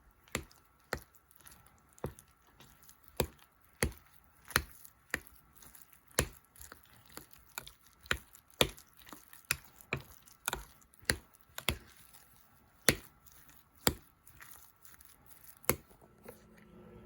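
A kitchen utensil knocking against a mixing bowl while mashed potato with cornstarch, milk and egg is mixed: a string of sharp, uneven knocks, about one or two a second, that stops near the end.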